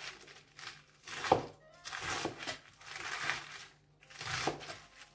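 Chef's knife chopping through lettuce leaves on a cutting board: crisp crunching cuts at about one stroke a second, each ending in a knock of the blade on the board, the sharpest about a second and a half in.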